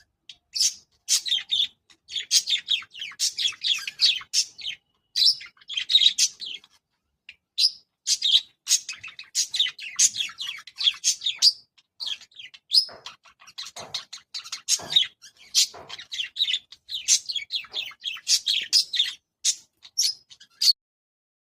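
Pet budgerigars chattering in busy runs of short, high chirps with brief pauses, stopping about a second before the end.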